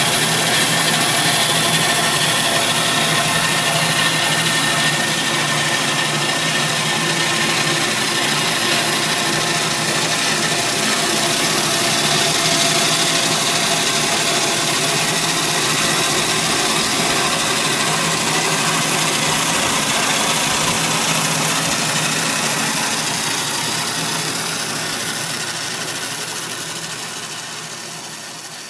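Stone-cutting saw running steadily as it cuts through a block of nephrite jade: a loud, even mechanical whir with a few steady tones in it, fading away over the last several seconds.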